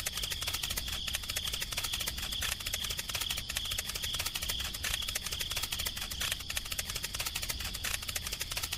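Steady insect chorus: a dense, rapid clicking trill with a continuous high-pitched ring, like crickets chirping.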